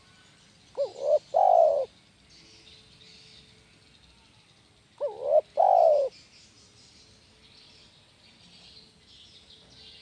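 Spotted dove cooing: two phrases about four seconds apart, each two short notes followed by a longer one.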